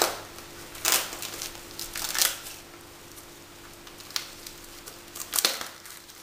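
Plastic shrink-wrap film on a boxed DVD set rustling and crinkling under the fingers as it is handled and picked at, in about five short crinkles.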